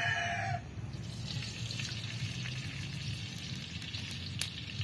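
Liquid poured into a hot steel wok over a wood fire, hissing and sizzling steadily as it meets the hot metal. A rooster's crow ends in the first half-second.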